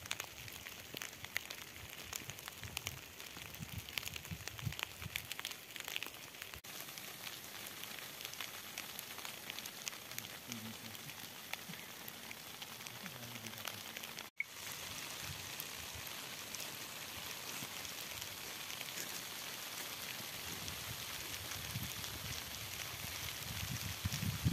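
Hail pellets falling and striking a nylon tent's flysheet and the ground around it: a steady dense hiss made of countless small ticks, broken for an instant about halfway through.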